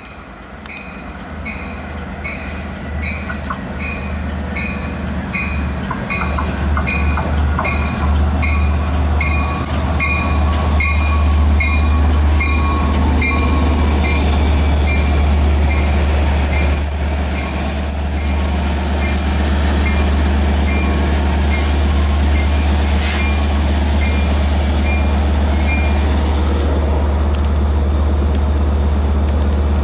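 Long Island Rail Road diesel locomotive and train growing louder over the first several seconds as it comes in, then running steadily with a deep low engine drone. A bell dings about twice a second until a few seconds before the end, and a brief high wheel squeal comes about halfway through.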